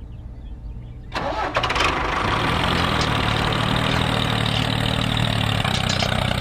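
Vehicle engine starting about a second in, then running steadily at idle.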